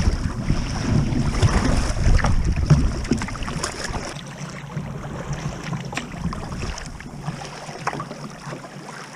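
Wind buffeting the microphone with a heavy low rumble, over sea water splashing and lapping against a kayak's hull. The wind rumble drops away about four seconds in, leaving the lighter splashing.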